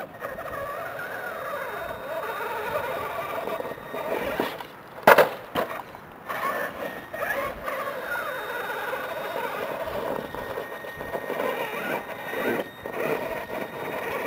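Electric motors and geartrain of a Traxxas E-Maxx RC monster truck whining, the pitch rising and falling with the throttle as it drives onto and starts climbing a rock pile. A single sharp knock about five seconds in.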